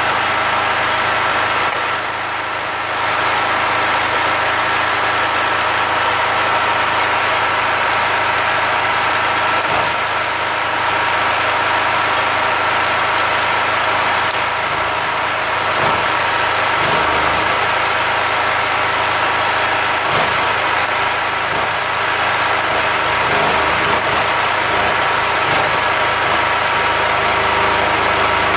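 Multipro GG 3900 portable generator's engine running steadily. Near the end, a stick-welding arc from the inverter welder it powers is struck and crackles.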